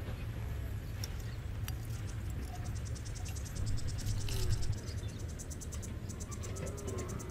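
Insects chirping in a fast, high-pitched pulsing trill that comes in a few seconds in, over a steady low rumble outdoors.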